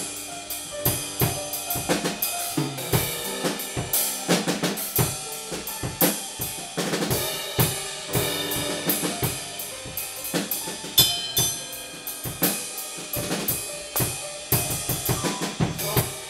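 Drum kit played in a free improvisation, with uneven, busy hits on snare, bass drum and cymbals several times a second, and piano notes sounding underneath.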